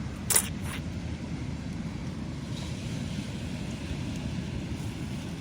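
Steady low rumbling noise, with two short sharp clicks about a third of a second and two-thirds of a second in.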